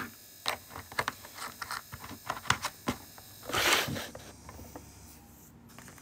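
Irregular light taps and clicks close to the microphone, like fingers typing or handling something, with a short louder rustling hiss about three and a half seconds in.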